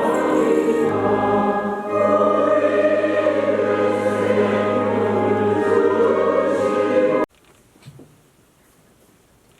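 Church choir singing a liturgical hymn over a steady held low accompaniment, stopping abruptly about seven seconds in; a quiet church follows, with one faint knock.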